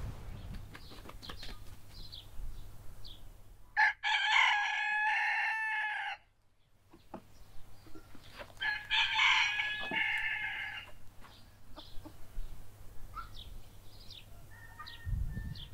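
A domestic rooster crowing twice, each crow about two seconds long, the second starting about five seconds after the first.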